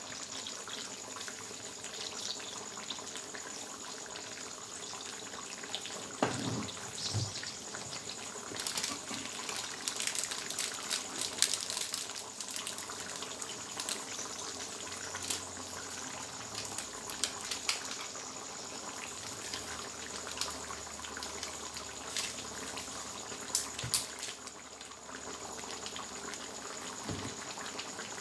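Chicken hang le curry simmering in a steel wok: a steady bubbling hiss, with bursts of crackling pops in the middle and near the end.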